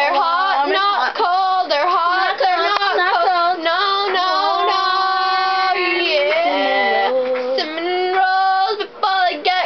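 Young voices singing a camp song, with notes held for a second or more around the middle.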